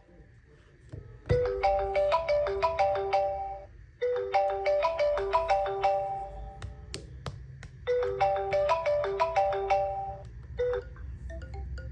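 Mobile phone ringtone: a short, bright melody of quick bell-like notes, played three times with brief gaps, as for an incoming call. Near the end a sparser run of notes begins.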